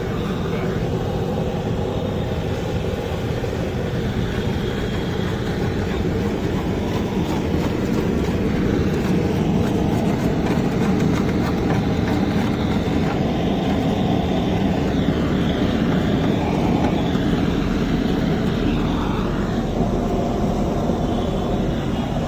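Hose-fed gas blowtorch burning with a steady rushing noise as its flame is played over the idol's base.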